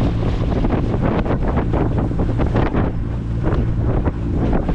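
Small outboard motor on a wooden skiff running steadily under way, with gusty wind buffeting the microphone. The engine has just been serviced with new spark plugs and an impeller, and it is running fine.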